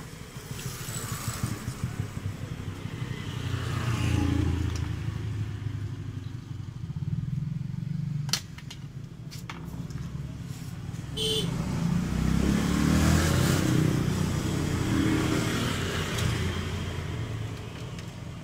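Motorcycle engine running, its sound swelling and easing a few times, with a couple of sharp clicks about eight and eleven seconds in.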